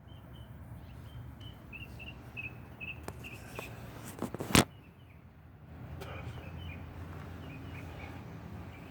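Truck engine idling with a steady low rumble, broken about halfway through by a single sharp clunk; a run of evenly spaced high chirps sounds over the first half.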